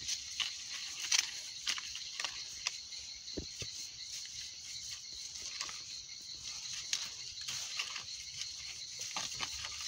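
Knife blade scraping bark off an orange tree branch to girdle it for air-layering: short, faint scratches and clicks. A steady high-pitched drone runs underneath throughout.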